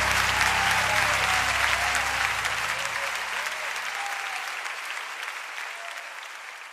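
Audience applauding, with a few voices calling out, while the band's last low held note dies away over the first three or four seconds. The whole sound fades out steadily.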